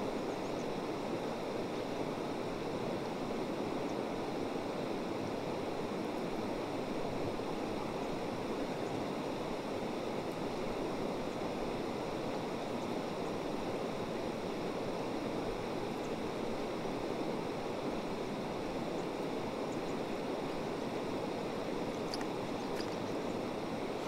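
Creek water running steadily, an even rushing.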